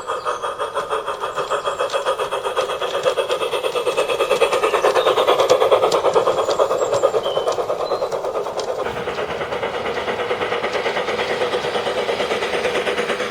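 G-scale model steam locomotive with an onboard sound unit running along the garden railway track, giving a rapid, even chuff. It grows louder to a peak about halfway through, then eases off somewhat.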